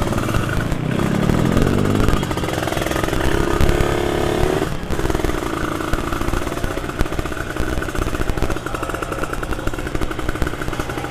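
Motorcycle engine heard from the rider's own bike, pulling away with the revs rising, dropping briefly about five seconds in at a gear change, then running steadily at riding speed.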